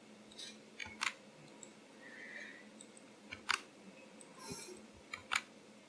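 A few scattered clicks of a computer mouse and keyboard, the sharpest about a second, three and a half and five seconds in, over low room noise.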